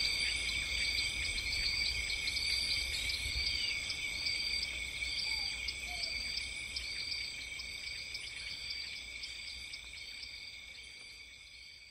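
Chorus of crickets trilling steadily, with a sharper chirp repeating a little under twice a second over a low outdoor rumble. It fades out gradually toward the end.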